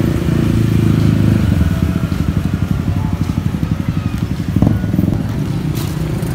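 Engine running with a low, pulsing rumble, loudest in the first two seconds. A sharp click sounds about four and a half seconds in.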